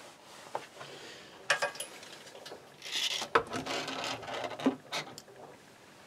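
Bosch front-loading washing machine's drum turning slowly with dry laundry tumbling and rubbing inside, at the load-sensing stage before it doses detergent and fills. Irregular scrapes and clicks, the sharpest one a little over three seconds in.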